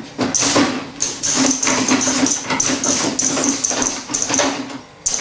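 Motion-rig car seat shaking, its mechanism clattering and knocking in quick, irregular bursts over a low hum that cuts in and out, and briefly quieter near the end.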